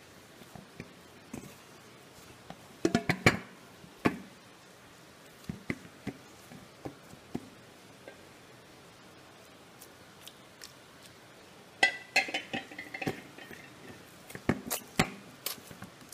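Hands kneading chapati dough in a stainless steel bowl: soft squishing of the dough with irregular knocks and clinks of the steel bowl, in clusters about three seconds in, around twelve seconds and near the end.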